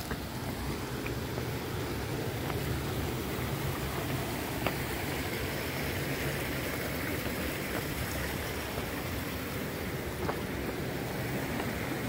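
Steady rushing of shallow water in a rocky creek, with a few faint taps of footsteps on stone.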